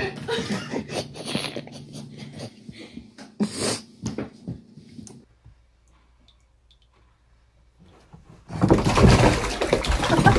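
A cat falls into a filled bathtub: loud splashing and churning water starting about two-thirds of the way in and running for about two seconds.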